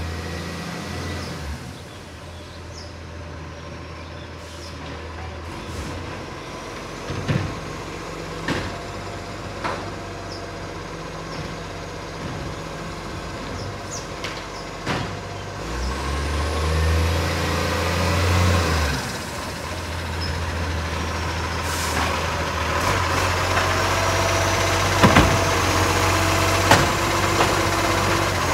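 Iveco Acco side-loader garbage truck's diesel engine running at a steady low rumble, growing louder as it drives up and stops alongside. Several sharp clanks and knocks come from its bin-lifting work along the street.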